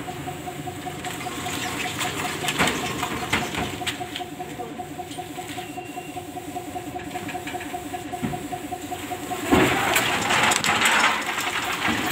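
An engine idles steadily with a regular beat. About nine and a half seconds in, a louder metal clatter sets in as the manual stacker is worked and pulled away from the truck.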